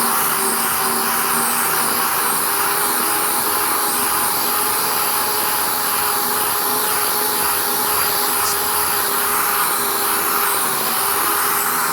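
A 6-inch air-powered random orbital sander running steadily while sanding body filler with 80-grit paper, a constant whine over a hiss of air and abrasion.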